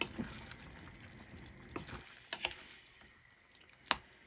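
Thai green curry paste cooking in a small saucepan, with scattered pops and ticks of bubbling sauce over a low hiss. The hiss fades about two seconds in, and a sharper pop comes near the end.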